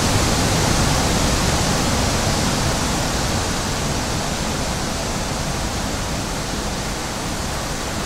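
High wind blowing, a steady rushing noise that slowly eases a little.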